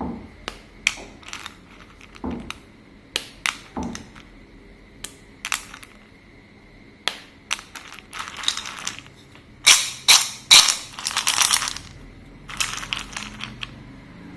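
Slate pencils being broken and crumbled: sharp single snaps a second or so apart, then, from about halfway, louder bursts of dense crunching and crackling.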